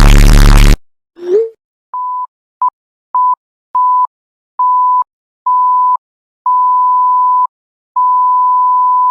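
A string of steady pure-tone beeps at one pitch, like a censor bleep, which get longer one after another until the last is held for over a second. Before them, a loud noisy effect with a low buzzing tone cuts off abruptly just under a second in, followed by a short rising blip.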